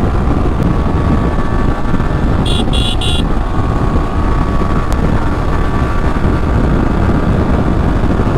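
Motorcycle riding at speed, heard from on the bike: a steady rush of wind on the microphone over the running engine. About two and a half seconds in come three quick high-pitched beeps, like a vehicle horn tooting.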